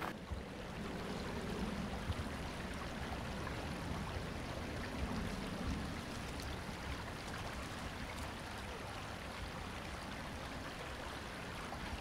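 Small creek flowing: a steady, even rushing of water.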